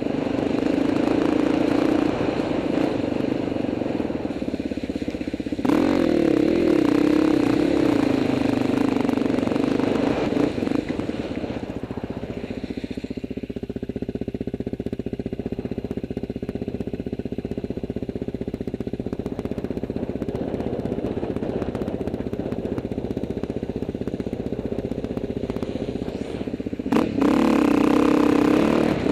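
KTM EXC 250 two-stroke enduro motorcycle engine running on the move, revving hard and easing off with the throttle. It runs quieter through the middle stretch and picks up again near the end, with a sharp knock or two.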